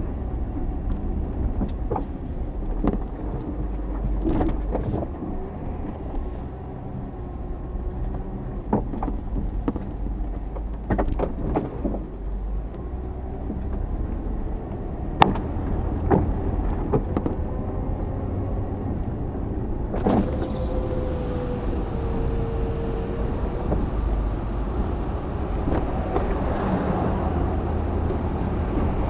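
Chevrolet Tahoe driving, a steady low engine and road rumble with scattered clicks and knocks. A faint whine wavers briefly about twenty seconds in.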